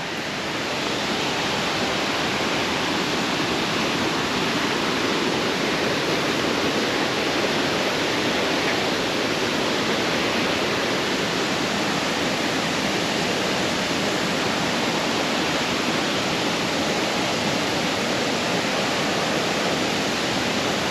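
Creek waterfall rushing steadily: an even, unbroken noise of falling water.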